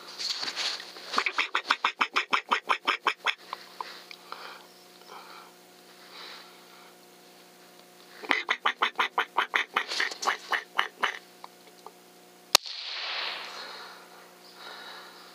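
Squirrel barking: two runs of rapid, harsh chattering calls at about nine a second, the first starting about a second in and the second about eight seconds in. Near the end a single sharp crack, a suppressed rifle shot.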